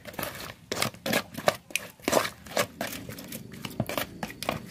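A stick stirring small wet fish in a plastic bowl: irregular sharp knocks and scrapes against the bowl with wet handling noise.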